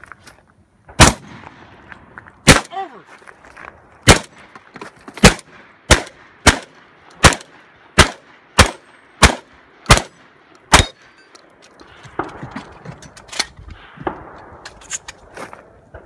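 A string of about a dozen loud, sharp gunshots, at first a second or more apart, then quickening to about two a second; after the second shot a struck steel target rings briefly. For the last few seconds the firing stops, leaving only a few fainter pops.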